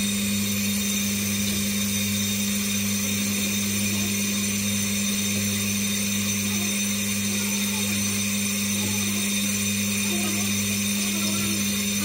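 Brake lathe running with a brake disc spinning on its arbor: a steady, unchanging motor hum with a high whine above it.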